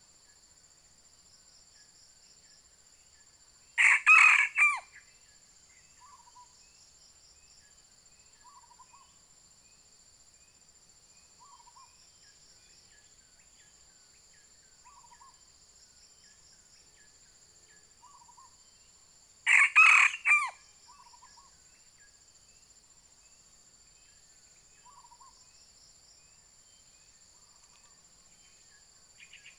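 Red junglefowl rooster crowing twice, each crow a short burst of about a second, about 15 seconds apart. Between the crows come faint short clucks every few seconds, over a steady high buzz of insects.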